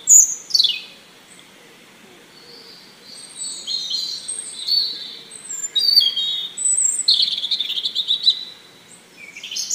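Birds chirping and twittering in high-pitched bursts: a quick falling call right at the start, a pause, then a busy run of short calls through the middle and another near the end.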